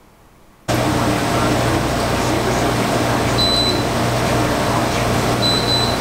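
Window air conditioner running, a steady whoosh with a low hum that comes in suddenly just under a second in. Two short high beeps come from it about two seconds apart, which the owner takes for the unit changing its own temperature setting.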